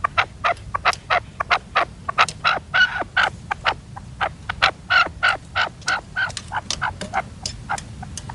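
Red-legged partridges calling: a rapid, rhythmic series of short, sharp clucking notes at about four to five a second, growing louder and denser in the middle.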